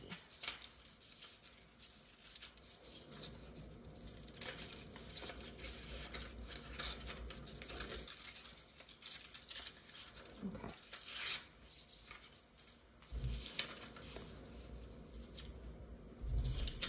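Scissors snipping through construction paper, with the paper rustling and crinkling as it is handled.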